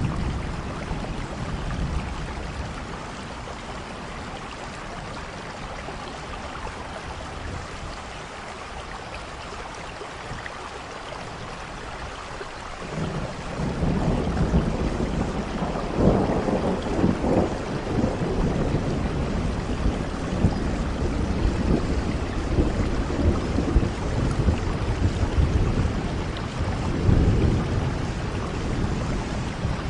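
Steady rainfall, with thunder rumbling in about halfway through and rolling on in repeated swells.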